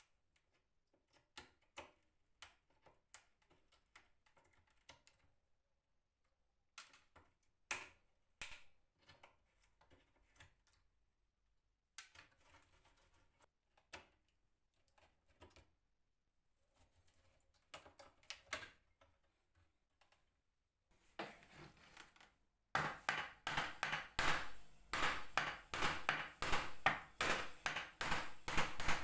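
Scattered light clicks and knocks, then, about two-thirds of the way through, a fast run of loud repeated strokes, several a second.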